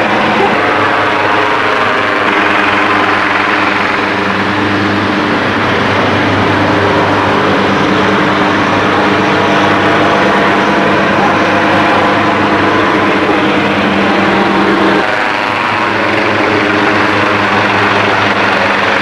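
Police helicopter hovering low overhead, its rotor and engine making a loud, steady drone that shifts in tone about three quarters of the way through.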